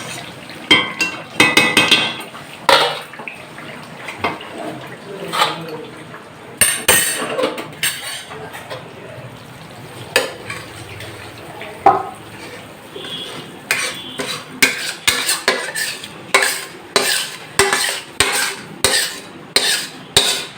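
Metal utensil clinking and scraping against a cooking pot of chicken chaap gravy, scattered knocks at first, then a regular run of clinks about one or two a second in the second half.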